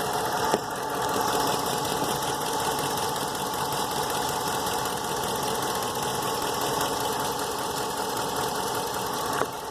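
2008 Ram 1500 engine running steadily with a knock, which the owner takes for engine knock. A sharp click about half a second in and another near the end.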